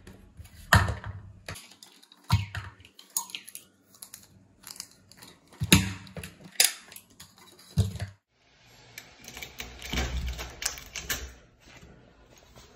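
Irregular clicks and knocks from a push-button key lockbox being worked open and its keys taken out, then handling of a door's pull latch.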